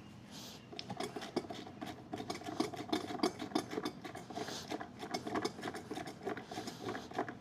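A hand pump on a quart bottle of lower-unit gear lube being worked in rapid strokes, pumping lube into an outboard's lower unit, a fast run of clicks starting about a second in.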